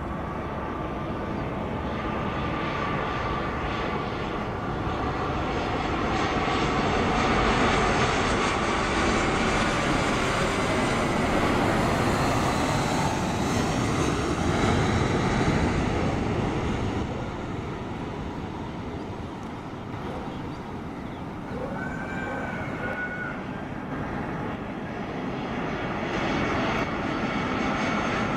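Airliner's engines running, a continuous noise with a faint steady whine; it grows louder toward the middle, eases after about two-thirds of the way, and rises again near the end.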